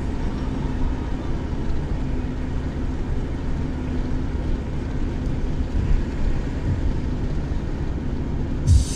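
Steady low road and engine rumble heard inside a moving car's cabin, with a brief low thump near the end.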